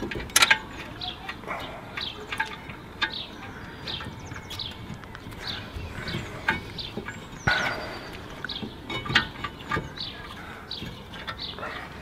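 Light metallic clicks and clinks as a car's front brake caliper bracket is set against the hub and its bolts are threaded in by hand. Birds chirp in the background.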